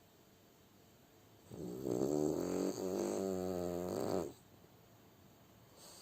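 French bulldog snoring in its sleep: one long pitched snore starts about a second and a half in and lasts nearly three seconds.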